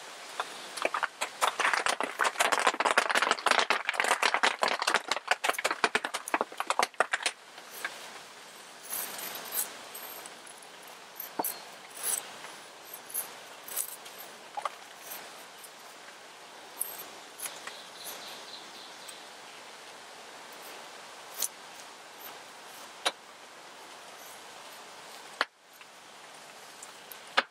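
Raindrops popping on a tarp shelter overhead: a dense flurry of pops for the first several seconds, then scattered single pops over a steady patter. A knife blade shaving curls off a wooden feather stick scrapes underneath.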